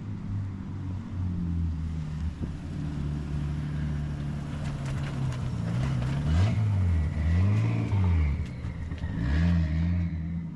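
Nissan R34 Skyline engine running, its revs rising and falling several times in the second half, with a high whine that follows the revs.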